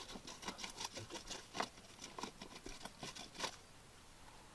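A wooden stick scraping and prodding into a wet clay bank, digging at a crab hole: quick, irregular scratches and clicks of earth crumbling away. The scratching stops about three and a half seconds in.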